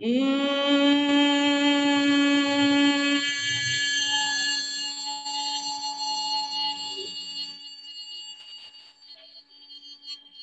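A woman humming one long, steady note with her mouth closed: bhramari pranayama (bee breath) done on a slow exhale. The hum slides briefly up in pitch as it starts, is loudest for the first few seconds, then fades to a faint hum over the rest of the breath.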